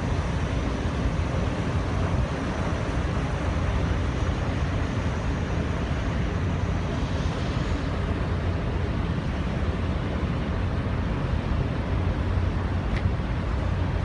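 Taima Star passenger ferry's engines running with a steady low rumble as the ship pulls away from the quay, its propellers churning the harbour water. Wind buffets the microphone.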